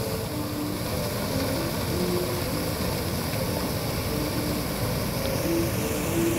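Illuminated fountain's water jets spraying and splashing down into the basin: a steady rushing noise.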